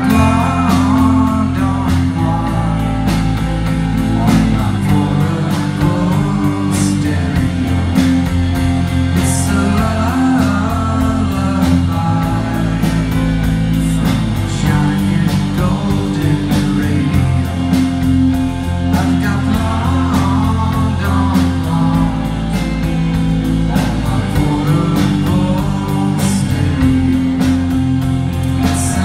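Live rock band playing: electric guitar and drum kit, with a man singing lead.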